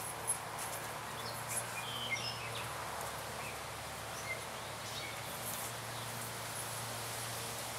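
Outdoor woodland ambience: a steady hiss with a few short, high bird chirps about two seconds in and again near the middle.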